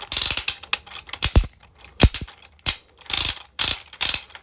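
The loudest clicking wheel on an XL 3D-printed plastic 12-in-1 fidget toy being turned in short strokes: a very loud ratcheting clatter in bursts about twice a second, with a couple of low knocks in between.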